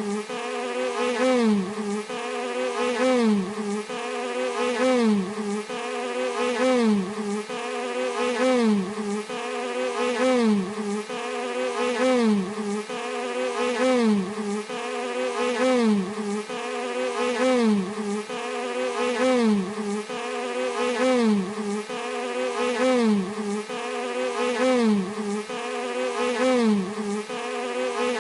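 Bee buzzing steadily in an evenly repeating pattern: the buzz dips in pitch and swells in loudness about every one and a half to two seconds.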